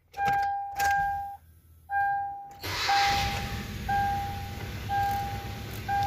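A 2016 Hyundai Accent's engine is started with the key and catches about two and a half seconds in, then runs steadily. The car now starts because the broken power wire to the ignition coils and injectors has been repaired. A dashboard warning chime dings about once a second throughout.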